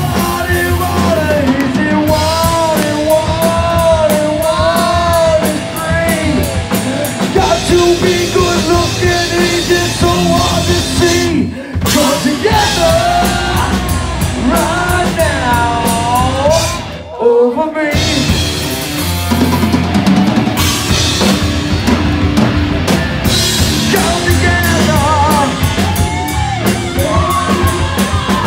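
Live rock band playing loud: drum kit, electric guitar through a Marshall amp, and a singer. The music stops short twice around the middle.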